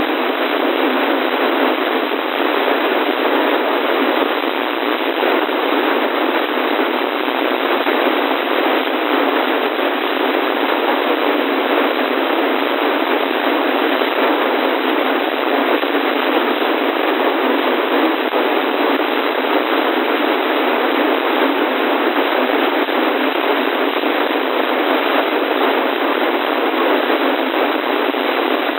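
Steady radio static: an even hiss from a weather radio receiver with no broadcast voice or alert tone coming through.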